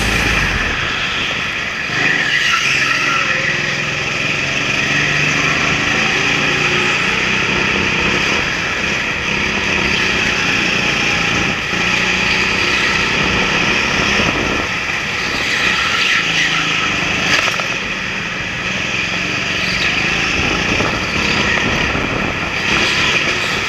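Racing kart engines running hard on an indoor track, heard from the driver's own kart. The engine note rises and falls with the throttle through the corners, and other karts' engines mix in around it.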